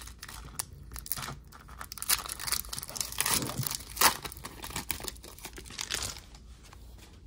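Foil wrapper of a Panini Prizm basketball card pack being torn open and crinkled by hand: a run of tearing and rustling, with the loudest rip about four seconds in, dying down after about six seconds.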